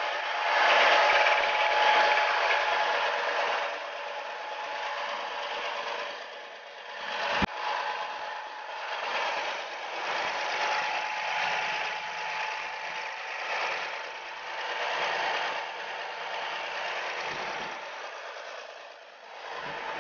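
Volvo D7D six-cylinder diesel engine running steadily during its break-in run, a faint steady whine over the engine noise. A single sharp click about seven and a half seconds in.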